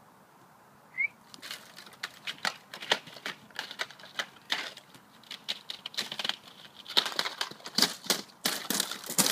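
Thin pond ice cracking and crunching underfoot as the dog crosses it. It comes as an irregular run of sharp cracks and clinks that starts after a quiet second and grows denser and louder near the end.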